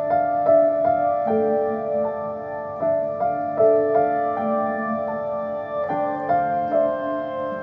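Slow, soft piano background music, single notes struck one after another about every half second.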